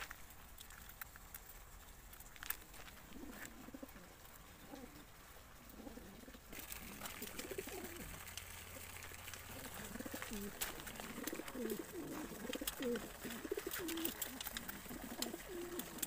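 Many homing pigeons crated together, cooing, the coos sparse at first and growing denser from about halfway through, with scattered light clicks.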